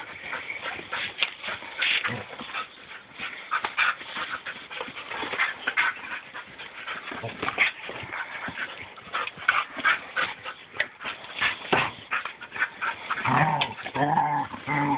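Two dogs, a border collie and a wolf hybrid, play-fighting at close range: short yips and whines over quick scuffling. A longer, lower vocal sound comes in near the end.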